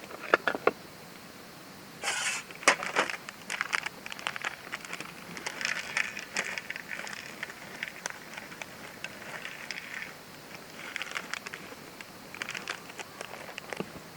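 Irregular clicks and light knocks mixed with rustling and scraping, with a brief louder noisy burst about two seconds in.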